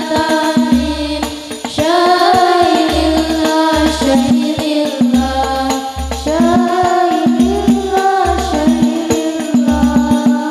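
Group of girls singing an Arabic devotional song together through microphones, with a musical accompaniment of a repeating low bass pulse and rattling, tambourine-like percussion.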